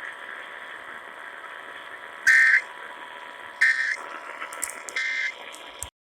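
Emergency Alert System end-of-message signal: three short squawks of SAME digital data tones, about 1.3 seconds apart and starting about two seconds in, over steady radio hiss. They mark the end of the weather alert broadcast.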